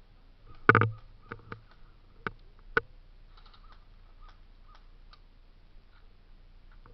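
A series of sharp clicks and knocks. A loud knock comes about a second in, then four sharper clicks over the next two seconds, then fainter ticks.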